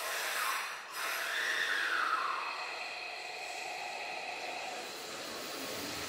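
Hanshin 5700 series electric commuter train starting off: a sharp hiss of compressed air released for about a second, then the whine of its electric traction drive rising and falling in pitch as it begins to pull away.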